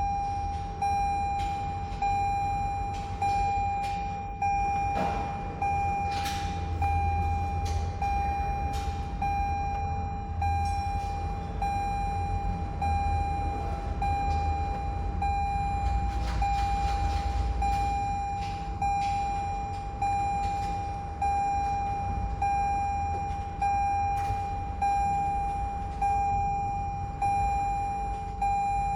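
Car's warning chime dinging over and over, one ding a little more than once a second, each fading before the next, over a low rumble and a few faint clicks.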